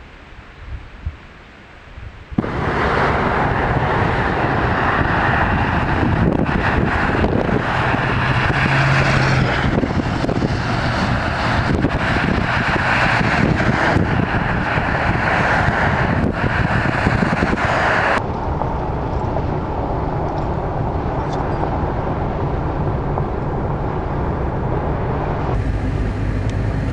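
Car driving, with steady road and wind noise. It starts abruptly about two seconds in after a short quieter stretch with a few knocks, and changes character suddenly twice later on.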